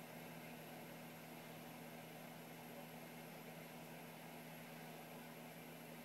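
Near silence: steady hiss with a faint low hum, room tone picked up by a phone recording a computer's playback.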